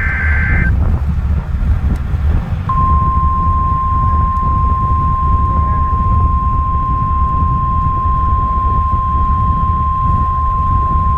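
The end of a SAME digital header's data screech, then, after about two seconds, NOAA Weather Radio's 1050 Hz warning alarm tone: one steady single-pitch beep held for about nine seconds, the signal that a warning-level alert follows. A car's low road rumble underlies it.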